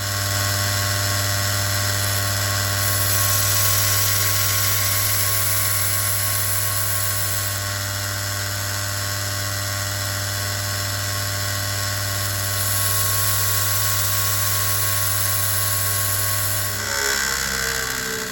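Electric grinder running steadily with a low motor hum and a bright abrasive hiss that swells twice, as steel is pressed to it. About 17 s in it is switched off and its pitch falls as it spins down.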